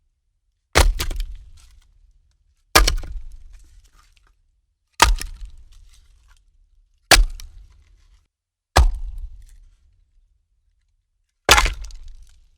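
Wooden logs being set down one at a time onto a woodpile, six times. Each is a sharp knock with a brief clatter of wood on wood that dies away, with silence between.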